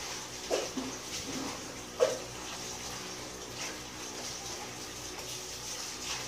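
Two short taps, the second the loudest, and a few fainter ticks as a small screwdriver and an opened phone are handled on a silicone repair mat, over a steady hiss.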